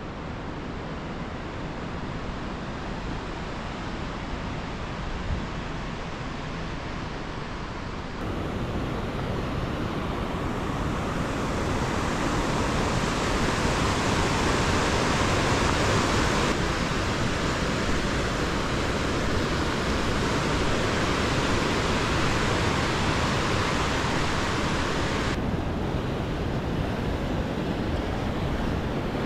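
Steady rushing of a white-water mountain river, with wind on the microphone. The sound changes abruptly a few times and is loudest just past the middle.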